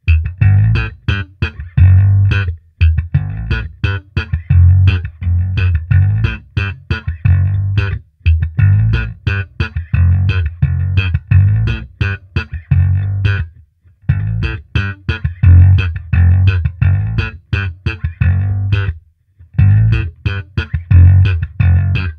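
Lakland Skyline 55-02 five-string electric bass played through a Hand Box WB-100 all-tube bass amplifier (ECC83 preamp, four 6L6 power tubes): a riff of deep notes, each with a sharp attack, in phrases with three short breaks between them.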